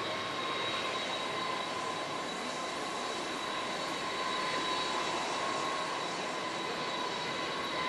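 Jet airliner engines running with a steady whine over a rushing noise. The recording's constant electrical hum from a faulty microphone lies underneath.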